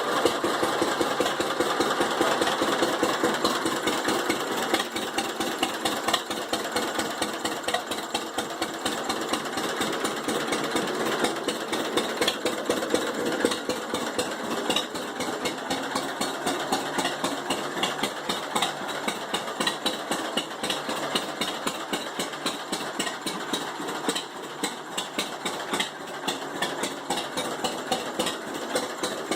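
1945 John Deere H's two-cylinder engine running steadily at idle, with an even, rapid beat of firing strokes.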